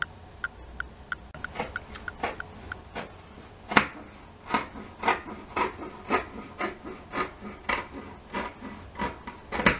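Scissors snipping through shirt fabric, a run of short rasping cuts about two a second, the loudest near four seconds in and again near the end.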